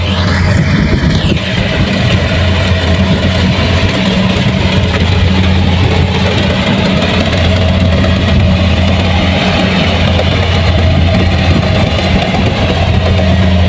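Kubota combine harvester's diesel engine running steadily with a deep, even hum, a brief high hiss sounding over it in the first second or so.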